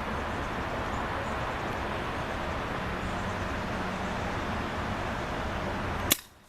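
Steady outdoor background noise with no clear source, an even hiss and rumble, ending in a single sharp click about six seconds in, after which the sound drops out almost completely.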